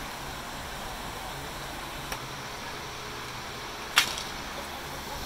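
Hockey sticks clacking at a faceoff: a faint click about two seconds in, then one loud, sharp crack about four seconds in.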